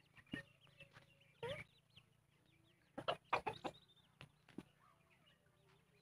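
Aseel chickens clucking: scattered short clucks, a quick cluster of them about three seconds in, with faint high chirps in between.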